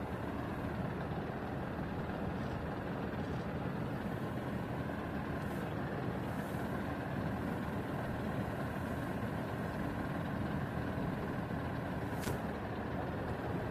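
An engine running steadily, with a short hiss about twelve seconds in.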